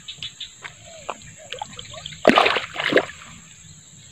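Two bursts of splashing in shallow swamp water, a little over two seconds in and again just before three seconds, as bait on a fishing line is worked through the water.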